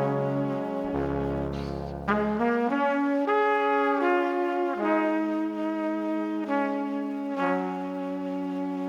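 Background music: sustained brass-like chords moving slowly from one to the next, with no beat.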